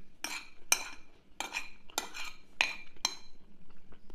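Cutlery clinking against a plate or bowl while eating, in a run of short ringing clinks about two a second that grow fainter near the end.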